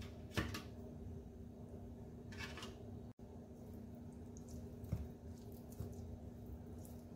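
Quiet squishing of a hand working yoghurt into spice-coated raw chicken drumsticks on a plate, over a low steady hum. A sharp tap comes about half a second in, and a knock about five seconds in.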